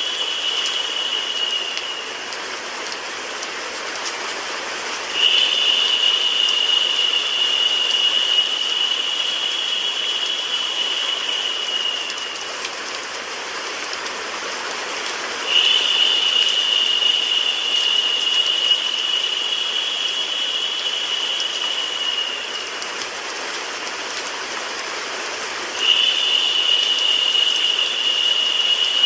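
Steady rain and white-noise hiss for sleep. A higher, narrower hiss comes in abruptly about every ten seconds, lasts about seven seconds and fades out, dipping slightly in pitch, as the loop repeats.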